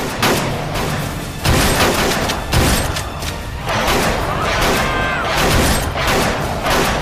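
A series of handgun shots, roughly one a second, over dramatic background music.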